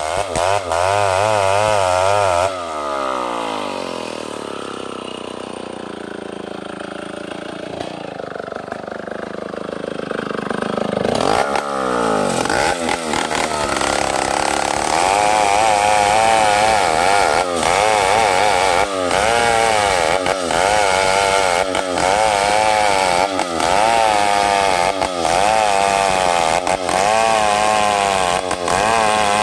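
Large two-stroke chainsaw rip-cutting a soft meranti log lengthwise, the engine at full throttle under load. About two and a half seconds in it falls back to a lower idle. Around eleven seconds it revs up again and cuts steadily, with small regular dips as the saw works along the log.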